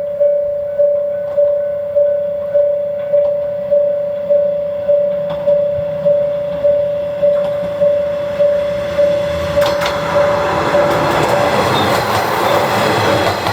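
Japanese level-crossing warning bell ringing steadily, about one and a half to two dings a second. From about ten seconds in, a Kanto Railway KiHa 5020 diesel railcar passes through without stopping. Its engine and wheel noise grows louder toward the end.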